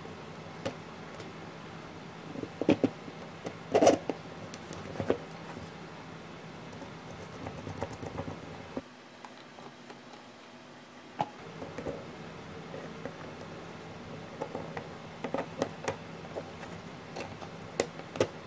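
Handling noise as 3D-printed plastic parts and metal RC shock absorbers are fitted together by hand: scattered small clicks and knocks over a steady hiss, with a cluster of louder knocks a few seconds in.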